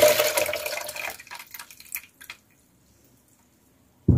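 Water pouring from a glass jar packed with garlic cloves into a plastic measuring jug, the stream thinning to trickles and drips and stopping about two seconds in. A short thump near the end.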